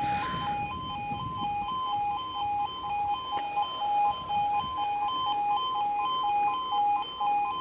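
Level crossing yodel alarm: a steady electronic two-tone warning that alternates between two pitches about twice a second while the crossing is closed.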